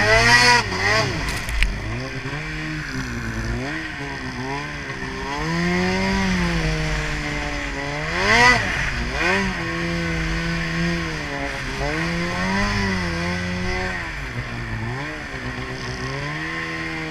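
Snowmobile engine revving up and down as it is ridden, its pitch rising and falling repeatedly, with the hardest throttle at the start and again about eight seconds in.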